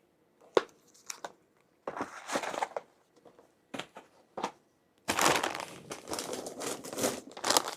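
Packaging crinkling and rustling as prepared-meal trays and their wrapping are handled, with a couple of sharp knocks early on and a longer stretch of continuous crinkling in the second half.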